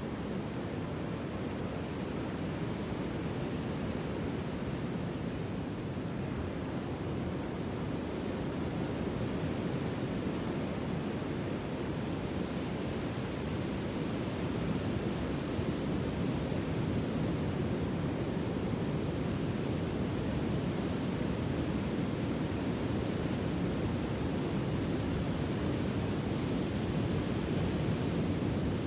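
Sea surf: a steady low rush of waves without distinct breaks, growing slightly louder in the second half.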